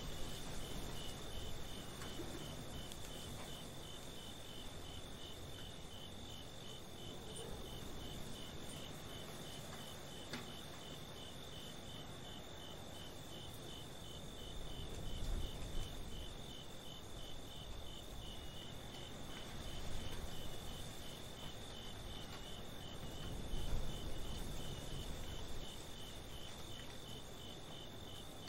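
Crickets chirping in a steady, even rhythm over a constant high insect trill, with a low rumble swelling up a few times.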